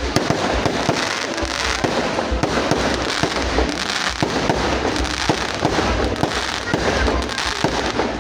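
Fireworks going off continuously: a dense crackle of many small bangs and pops with deeper booms among them.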